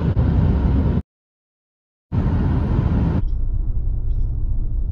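Steady road and tyre noise inside a moving vehicle's cabin. About a second in it drops out to dead silence for about a second. Then it returns and, a little past halfway, changes to a quieter, lower rumble with a steady hum.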